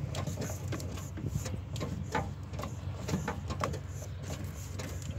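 Low steady hum of an engine running, with scattered light clicks and knocks over it.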